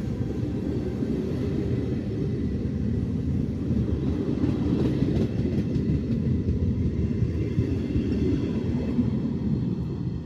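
Double-deck passenger coaches rolling past at close range: a steady low rumble of wheels on the rails, loudest in the middle and easing off near the end as the train draws away.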